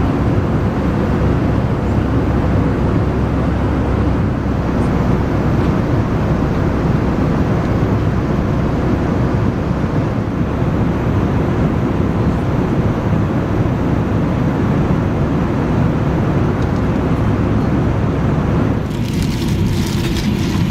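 Steady rushing noise inside an Airbus A319's cabin in flight, from its engines and the airflow. Near the end the sound changes suddenly and turns thinner and more hissy.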